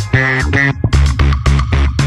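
Background music with plucked guitar and bass over a beat.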